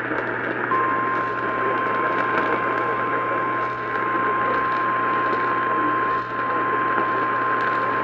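Emergency Alert System attention tone relayed over AM radio: one steady high tone that comes in about a second in and holds, over the hiss and hum of AM reception.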